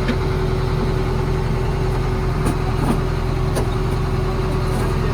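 An engine running steadily at idle, with a few light clicks about halfway through.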